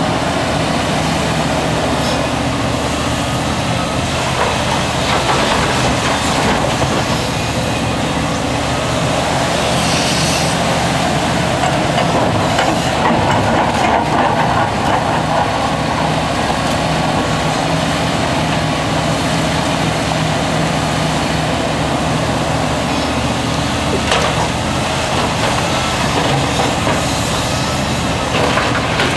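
Liebherr R974B crawler excavator at work: its diesel engine runs steadily under load as the bucket digs into and lifts broken rock, with a few knocks of rock striking the steel bucket.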